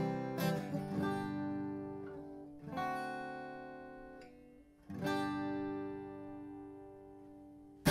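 Acoustic guitar music: a few strummed chords, each left to ring out and fade slowly, with another chord struck right at the end.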